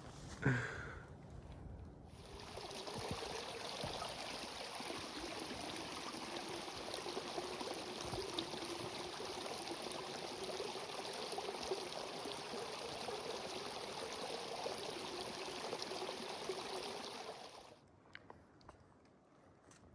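Running water of a small stream, a steady rushing flow that begins about two seconds in and cuts off suddenly near the end.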